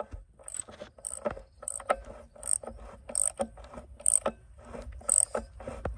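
Repeated sharp metallic clicking and clanking, a stroke roughly every half second to second, from hand work on a rusty truck engine.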